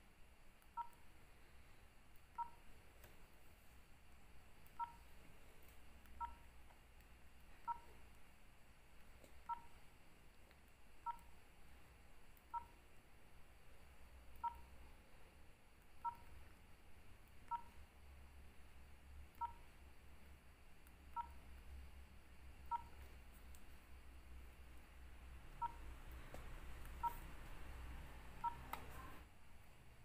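Nokia 3806 keypad tones: a short two-tone beep at each press of the navigation keys, about one every one and a half seconds, coming a little faster near the end.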